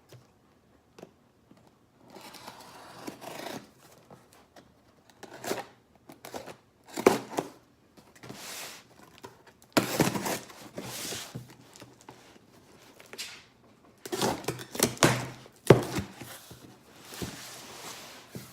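A cardboard shipping box being opened by hand: irregular tearing, scraping and crinkling of tape and cardboard, with a few sharp knocks.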